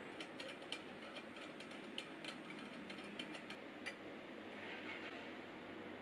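A quick, irregular run of small metal clicks as a brass ring is fitted onto a lamp socket inside a brass-framed glass lampshade; the clicks stop about four seconds in.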